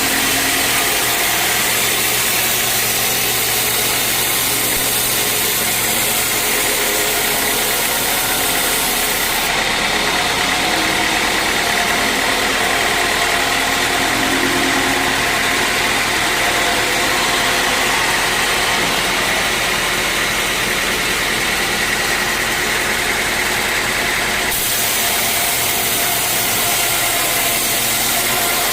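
Sawmill machinery running steadily with a constant engine drone. Its tone shifts about a third of the way in and shifts back near the end.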